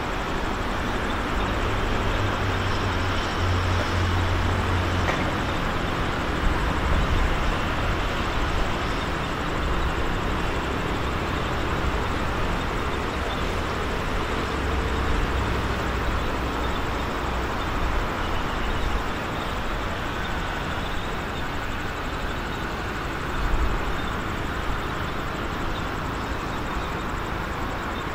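Steady rumble of road traffic mixed with a diesel train approaching from far off, with a low engine hum that swells twice.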